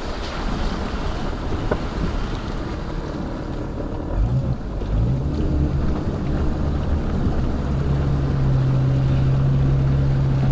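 Jeep Cherokee XJ's engine running under light throttle as it wades slowly through deep water, heard from inside the cab over a rushing wash of water. The engine hum rises about four seconds in, then holds steady and grows louder.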